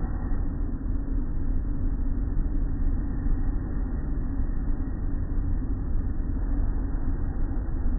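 Automatic tunnel car wash heard from inside the car: water and soapy foam pouring over the windshield and body, with a steady low rumble of the wash machinery.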